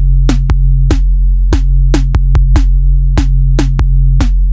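Background electronic music: a drum-machine beat of sharp, evenly patterned hits over a sustained low bass.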